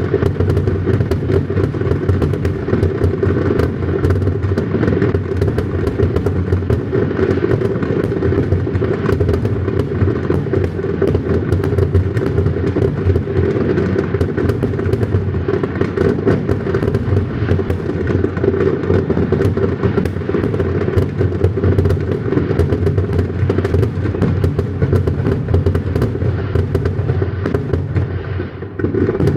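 Fireworks finale: a continuous barrage of overlapping aerial shell bursts, booms and crackles, with a brief lull just before the end.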